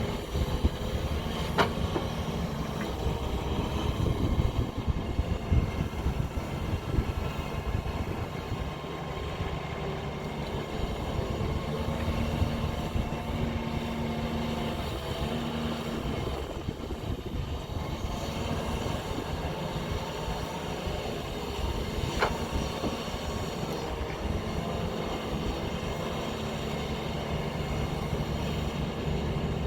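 JCB backhoe loader's diesel engine running steadily as it works, with two sharp knocks, one near the start and one about two-thirds of the way through.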